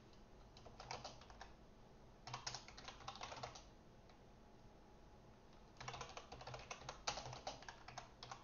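Faint typing on a computer keyboard: three quick bursts of key clicks, with a pause of about two seconds before the last.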